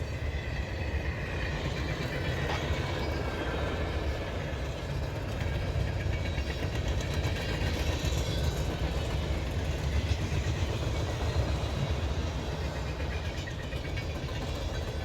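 CSX freight train rolling past, the rail cars making a steady, unbroken low rumble.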